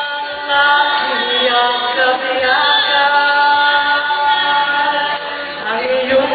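A man and a woman singing a Filipino love-song duet into microphones, holding long sustained notes.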